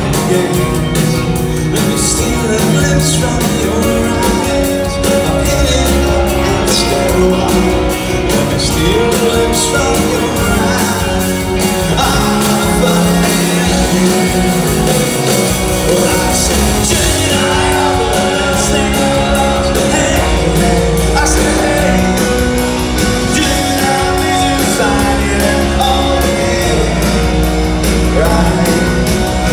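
Rock band playing live: a man singing lead over electric guitars, bass guitar, drum kit and keyboards.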